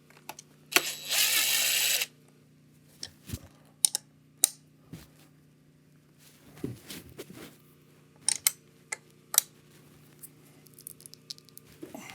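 A brief burst from a power driver about a second in, then scattered clicks and knocks of tools and metal parts as an Onewheel's hub motor is unbolted.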